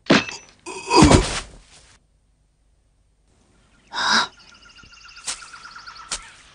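Cartoon fight sound effects: a sharp hit at the start and a heavier thud about a second in, then silence. About four seconds in a short burst comes, followed by a bird's rapid, evenly repeating trill for about two seconds, with a couple of faint clicks.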